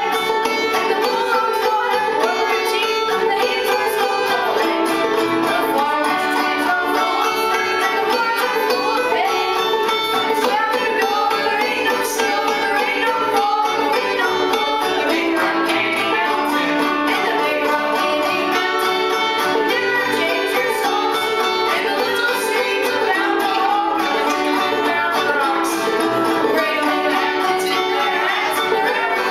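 Clawhammer banjo played briskly by a ten-year-old, with acoustic guitar strummed along: an old-time tune at a steady, even loudness.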